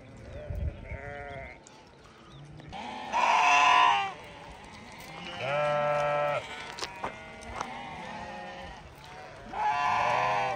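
Several sheep bleating one after another, the longest and loudest call about three seconds in, with others around five and a half seconds and near ten seconds, and fainter bleats in between.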